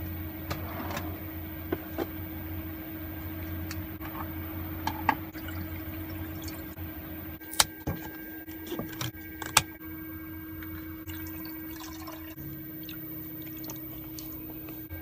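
A cardboard soup carton handled and torn open at its corner, with a couple of sharp clicks, then liquid soup pouring from the carton into a cooking pot. A steady low hum runs underneath.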